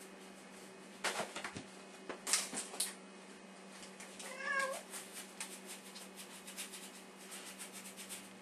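A house cat meows once, a short call rising and falling in pitch, about four seconds in. Around it come scratchy strokes of a paintbrush working on canvas, the loudest about one and two and a half seconds in, then a run of quick light dabs.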